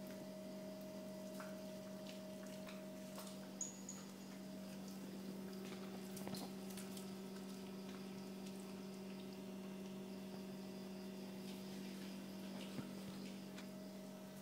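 A Shetland sheepdog licking and mouthing a whole raw piglet, making faint wet smacks and small clicks, over a steady electrical hum.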